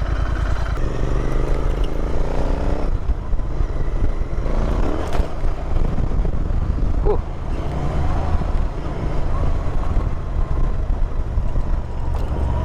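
Royal Enfield Interceptor 650's parallel-twin engine running steadily as the motorcycle is ridden over a rough dirt trail, with a couple of brief knocks about five and seven seconds in.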